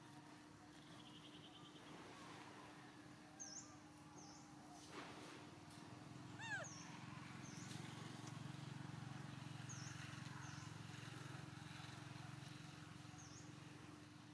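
Near silence: faint outdoor background with a steady low hum and a few short, high chirps scattered through it, typical of small birds.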